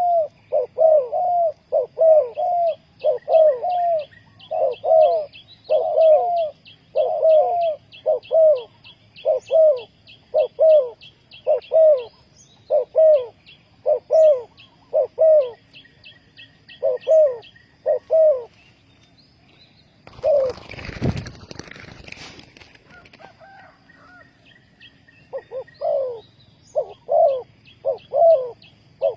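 Spotted dove cooing in a steady series of short coos, about one a second. Around two-thirds of the way through the cooing stops and there is a loud burst of wing flapping lasting about three seconds, then the cooing picks up again near the end.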